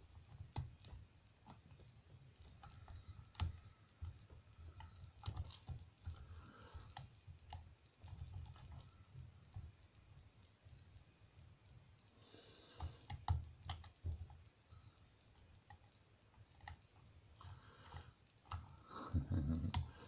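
Faint, irregular metallic clicks and ticks of a hook pick working the pin stack inside a brass lock cylinder under a tension wrench, with light handling rumble and a louder cluster of clicks about thirteen seconds in.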